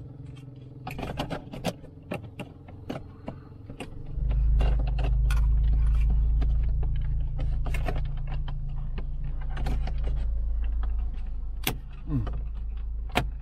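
Plastic dash trim bezel being handled and pressed into place: a run of sharp plastic clicks and taps as the tight new clips are pushed in. About four seconds in, a loud steady low rumble starts and drowns most of it, easing off a few seconds before the end.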